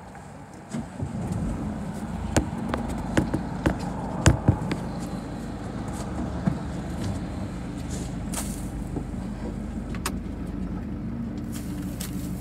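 Car engine starting about a second in, then idling steadily, heard from inside the car, with a few sharp clicks in the next few seconds.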